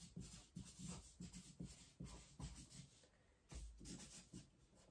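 Marker pen writing on a paper chart: faint, short scratchy strokes, with a brief pause about three seconds in.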